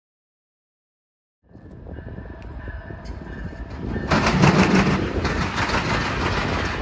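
Silence for about a second and a half, then a Canadian National freight train approaching behind its diesel locomotives: a steady rumble of engines and wheels on rails that grows louder and jumps up suddenly about four seconds in.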